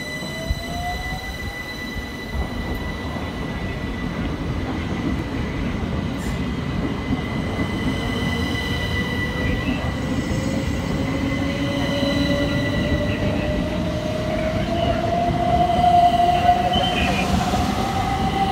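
Thameslink Class 700 electric multiple unit 700149 running through the station, a continuous rumble with steady high-pitched tones. A motor whine rises slowly in pitch across most of it, and the train grows louder towards the end.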